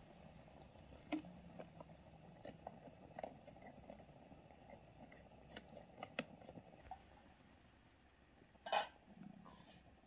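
Faint scattered clicks and taps over a low steady hiss, with one louder knock near the end.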